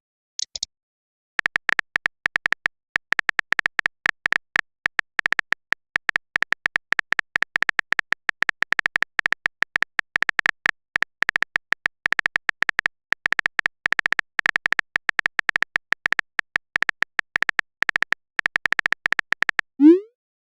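Phone keyboard typing sound effect: rapid, irregular clicks going on for about eighteen seconds as a message is typed out in a chat. Near the end comes a short rising pop, a message-sent sound.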